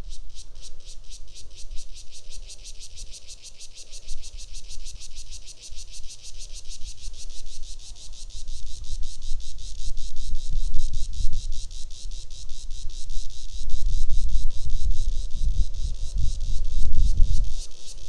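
An insect calling in a continuous high-pitched trill of rapid, even pulses. Underneath it a low rumble swells and falls, growing louder from about halfway through.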